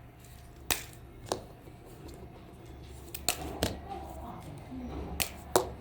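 Six sharp clicks or snaps in three pairs, about a second and a half apart, over a low steady hum.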